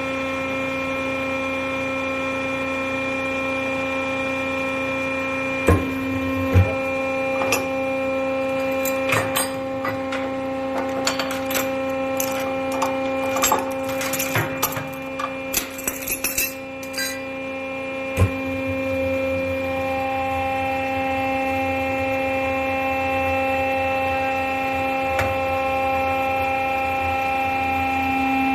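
Kitamachi Kikai metal scrap press running, its 7.5 kW motor and hydraulic pump giving a steady hum. From about 6 to 18 seconds in comes a run of sharp metallic clicks and clanks, and the hum shifts slightly in pitch near the end.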